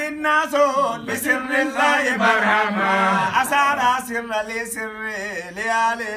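Men chanting an unaccompanied Islamic devotional song in Arabic, the melody wavering through long sung phrases.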